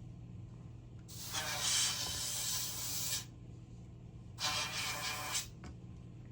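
An aerosol can of test smoke hissing in two sprays, one of about two seconds and a shorter one of about a second, as used to set off a smoke detector for testing. A steady low hum runs underneath.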